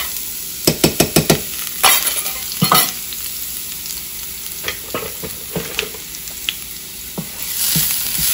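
A utensil clinks and taps against a small stainless steel bowl, about five quick taps about a second in and two more knocks soon after, as chopped onion is knocked out into the pan. Under it, finely chopped onion sizzles in hot olive oil in a frying pan, the sizzle growing louder near the end as a wooden spatula stirs it.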